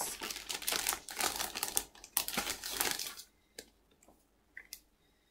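Comic books and their covers rustling and crinkling as they are handled and shuffled, for about three seconds, then a few faint taps.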